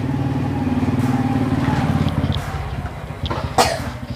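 A small engine running steadily, quieter after about two seconds, with one sharp knock near the end.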